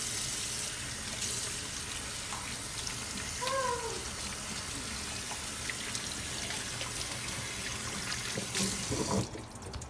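Kitchen faucet running steadily into a stainless steel sink while soapy hands are rubbed and rinsed under the stream; the water sound drops away near the end.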